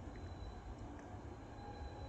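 Faint background rumble with a thin, steady high whine over it and a couple of soft clicks; no train is passing close by.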